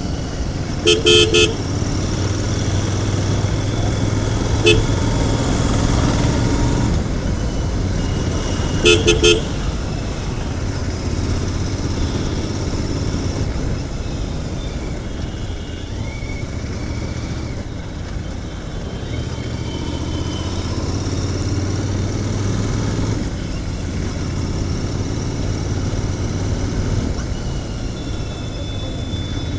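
Royal Enfield Continental GT 650's 648 cc parallel-twin engine running on its stock exhaust while being ridden, the engine note swelling and easing with the throttle. A vehicle horn toots in short beeps: a quick few about a second in, one near five seconds, and two around nine seconds.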